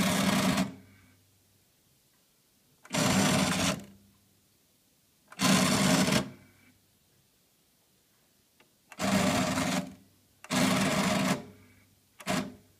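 Motor-driven cassette door mechanism of an Akai GX-75 cassette deck whirring in six short bursts, the last one brief. It is the weird sound on opening that the owner takes for a failing motor.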